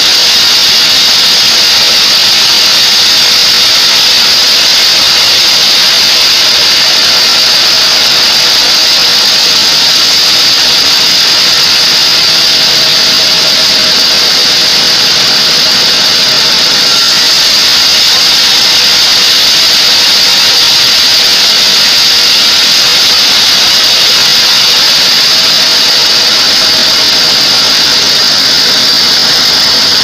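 Sawmill band saw running and cutting through a squared mahogany timber: a loud, steady, hissing machine noise with a high edge.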